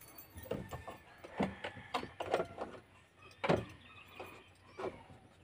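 Scattered light knocks and clicks from handling inside a truck cab, a dozen or so short taps at uneven spacing with a slightly heavier thump about a second and a half in and again past three seconds.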